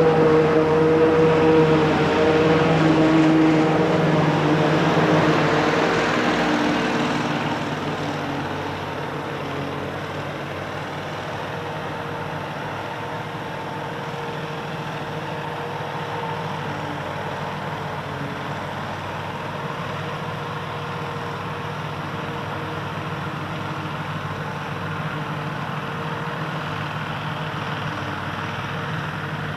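Self-propelled forage harvester chopping maize, its engine and cutterhead running steadily. The sound is louder for the first seven seconds or so, then quieter and even.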